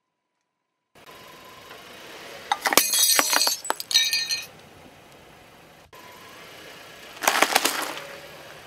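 Brittle objects crushed under a car tyre. About two and a half seconds in, Kinder Surprise eggs and hard white shards crack and shatter in a rapid run of sharp snaps lasting nearly two seconds. About seven seconds in, a tray of raw eggs crunches as the shells break under the tyre.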